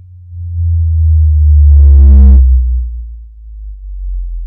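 Subwoofer playing a low-frequency sine sweep, one pure bass tone gliding slowly downward from about 100 Hz toward 50 Hz. It swells to its loudest about two seconds in, where a brief buzzy overtone rides on top of it, then eases off.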